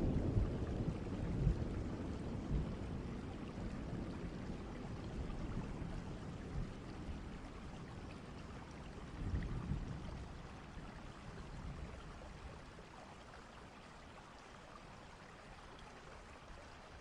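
Thunderstorm: steady rain with a low thunder rumble dying away at the start and a second, softer rumble about nine seconds in. The whole storm gradually fades down.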